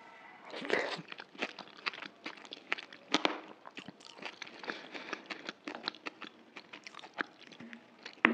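Close-miked chewing of a mouthful of dahi puri, the crisp puri shells crunching between the teeth in a quick run of sharp crackles, loudest about a second in and again about three seconds in.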